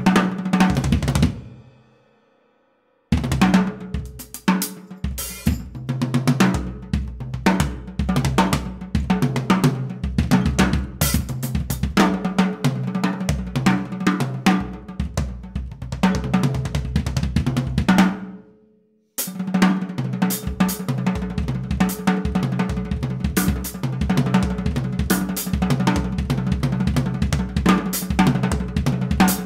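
Drum solo on a sit-down cocktail drum kit. The kick is a 1972 Ludwig 16-inch floor tom struck from below by a foot pedal, played with snare, a 13-inch tom and cymbals in busy improvised fills. The playing stops for about two seconds soon after the start and again briefly just past the middle, then picks back up.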